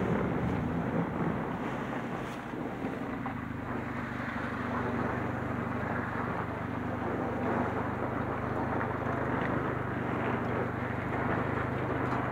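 Car engine running at low speed with tyre and road noise, heard from inside the cabin as the car rolls slowly along: a steady low hum.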